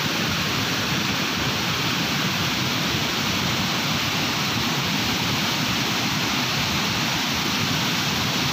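Flood-swollen stream rushing and churning over rocks and a weir: a steady, loud noise of fast-flowing water.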